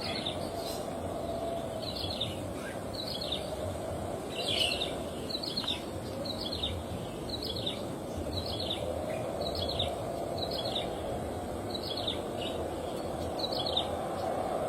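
Ciblek sawah, a small prinia of the rice fields, calling: a steady run of short, high chirps about one and a half a second, over a constant low background rumble.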